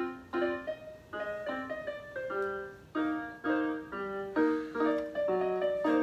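Background music: piano chords struck in a steady rhythm, about two a second.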